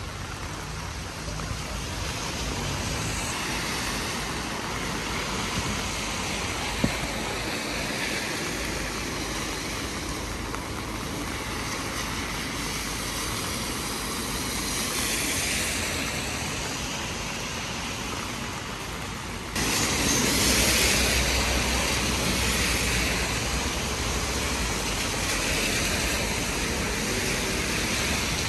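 Steady rain with traffic on a wet street: tyres hiss and swell as cars pass now and then. There is a single sharp click about seven seconds in, and the noise jumps suddenly louder about twenty seconds in.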